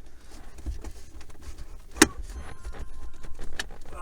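Plastic overhead console and its trim clips being handled and pried, with one sharp snap about two seconds in and a lighter click later.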